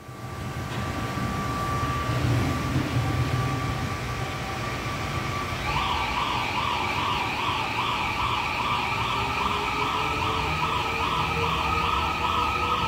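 Seoul Subway Line 4 electric train pulling out, with a steady rumble and a faint, slowly rising motor whine. From about six seconds in, a loud siren-like warbling alarm sweeps up and down a little over twice a second.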